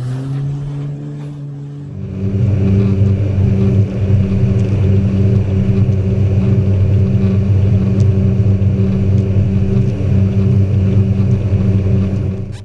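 A motor engine running. It eases slightly in pitch, then opens up about two seconds in to a louder, steady run that holds until it cuts off suddenly at the end.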